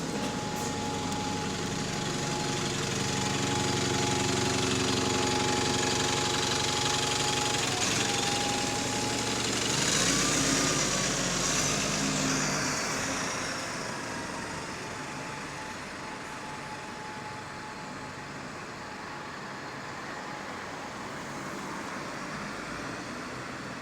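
Bus drivetrain heard from inside the saloon, pulling away and working up through the gears, then easing off about halfway through. A thin high whine runs under it for much of the time: the subtle odd differential noise.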